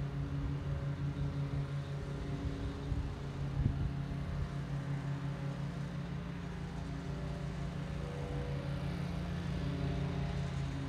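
A steady low mechanical hum with a few faint low knocks about three to four seconds in.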